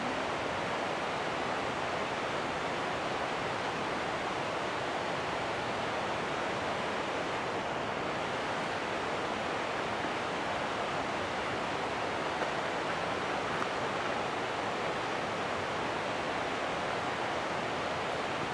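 Steady, even rushing noise, unchanging, with no distinct calls or clicks.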